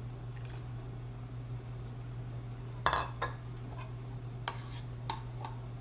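Freshly made borax-and-glue slime being handled in a bowl: a few short wet squelches and clicks, the loudest about halfway through, over a steady low hum.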